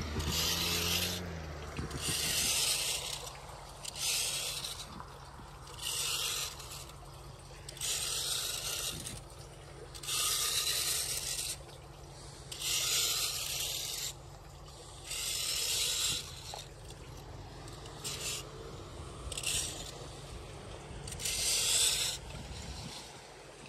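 Small 8-inch hand rake scraping wet leaf muck across pavement to clear a storm drain: about eleven strokes, roughly one every two seconds.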